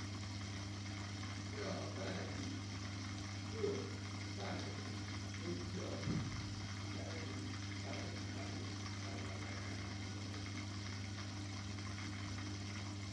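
Aquarium pump or filter running: a steady low hum with water moving.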